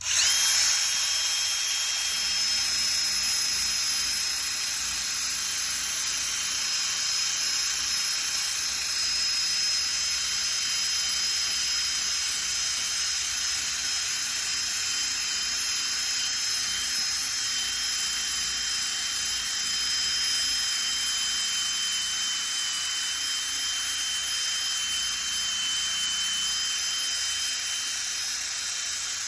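Electric hand drill with a sanding attachment, switched on sharply and running steadily at high speed with a high whine, sanding old paint off a metal vehicle hood.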